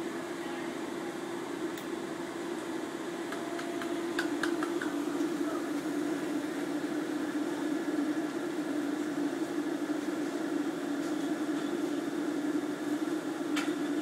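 A steady mechanical hum, a little louder from about four seconds in, with a few light clicks around then and one sharper click near the end.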